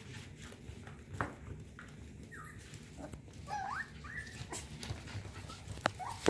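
F1 cockapoo puppies playing, giving several short, high yips and whines, with sharp taps and clicks near the end.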